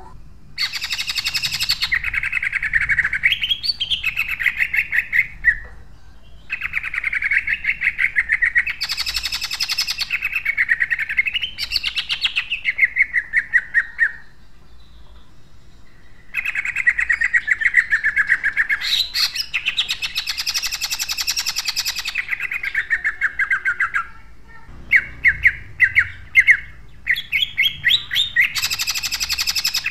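Cucak ijo (green leafbird) singing its loud, harsh 'tembakan' song: long runs of fast, tightly packed repeated notes, each run lasting several seconds, with short pauses between runs. About 25 seconds in, it gives a few separate sharp chirps before the fast run starts again.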